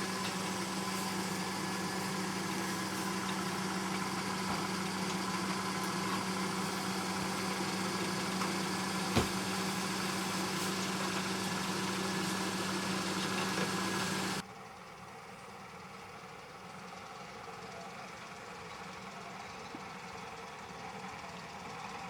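Vehicle engine running steadily with a constant low hum, a single sharp click about nine seconds in. The engine sound cuts off suddenly about fourteen seconds in, leaving a quieter steady background noise.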